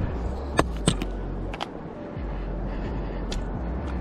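Large spinning reel being cranked to wind in line, a steady low rumble carried up the rod, broken by a few sharp clicks and knocks and a short pause about two seconds in.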